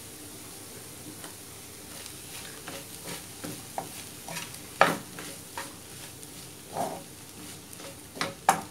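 Wooden spatula stirring and scraping a squid and grated-coconut stir-fry in a frying pan, over a low steady sizzle. The scrapes and knocks come irregularly, the loudest about halfway through and near the end.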